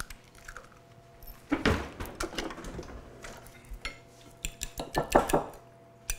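Metal fork clinking against a ceramic bowl while beating eggs: scattered taps, a louder knock about a second and a half in, and a quick run of clinks around five seconds in.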